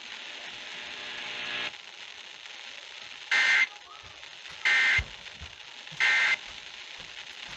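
Three short bursts of Emergency Alert System SAME data tones, evenly spaced about 1.3 seconds apart, over weather-radio hiss: the end-of-message code that closes the flash flood warning broadcast.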